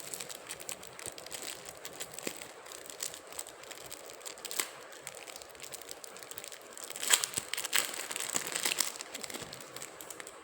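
Plastic coin packaging crinkling and crackling as it is handled and opened, with a louder run of crackles about seven to nine seconds in.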